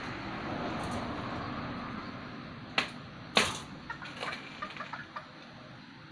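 Glass-cutting machine at work: a steady hiss for about two seconds, then two sharp knocks a little over half a second apart, followed by several lighter clicks.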